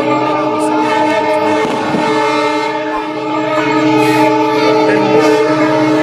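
Train horn blowing one long, steady note over the noise of a large crowd, growing louder about three and a half seconds in.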